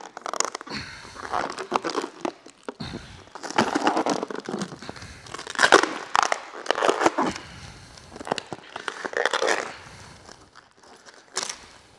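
Clear plastic paint protection film being peeled off a truck's painted hood and bunched up in the hand, crinkling in irregular bursts.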